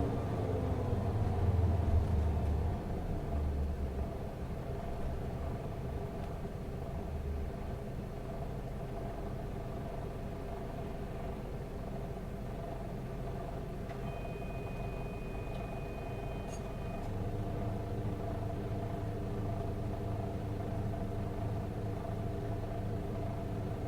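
Cabin sound of a Mitsubishi Fuso Aero Ace highway coach's diesel engine running low and steady as the bus slows. A high electronic beep sounds for about three seconds past the middle, after which a steadier engine hum with a stronger low rumble sets in.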